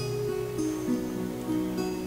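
Acoustic instrumental background music with plucked guitar notes.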